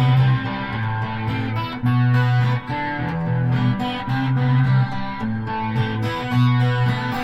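Instrumental break of a song: guitars over a steady bass line, no singing.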